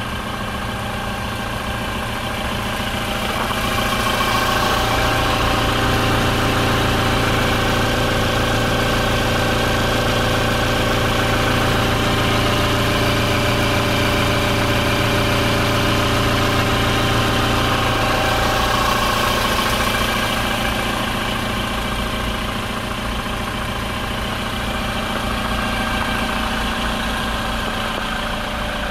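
Toyota Hilux's 2.8-litre four-cylinder turbodiesel idling steadily, louder from about four seconds in until about twenty seconds in.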